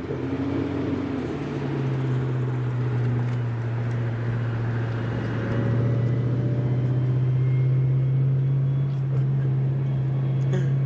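Car engine running while driving, heard from inside the cabin: a steady hum that drops slightly in pitch about a second in, then holds.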